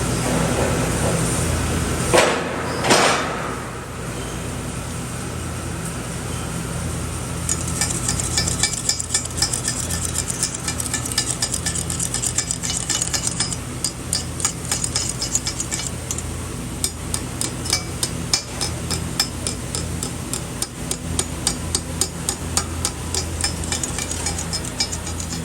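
Arc welding on thin-walled steel pipe: a steady electrical hum with dense, irregular crackling ticks from the arc, starting a few seconds in. Two sharp metallic knocks sound just before the crackling begins.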